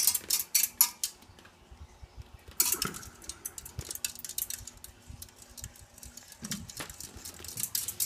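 Irregular light metallic clinking and jangling, thick in the first second, then a burst about three seconds in and scattered clinks after. A faint steady hum from the running ceiling fan lies underneath.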